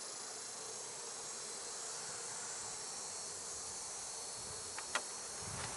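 Honey bees buzzing in a steady hum from an open hive full of bees, with a single short click about five seconds in.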